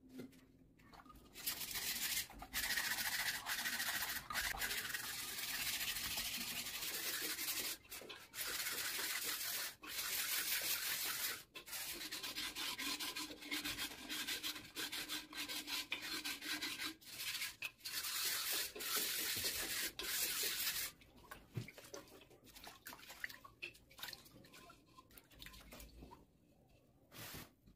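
Hands rubbing the surface of a hard white shell, a dry scraping hiss in long strokes with short breaks. It stops about two-thirds of the way through, leaving faint scattered handling noise.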